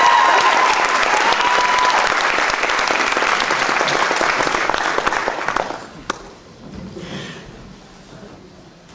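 Audience applauding, fading away about six seconds in, followed by a single knock and faint rustling.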